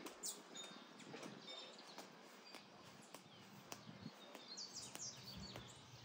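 Faint chirps and calls of several small birds, many of them quick high notes that drop in pitch, with a busier run of these falling notes near the end.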